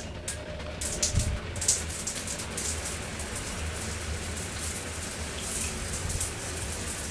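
Shower running, water spraying from a large shower head onto the tiled floor: a steady hiss that swells about a second in.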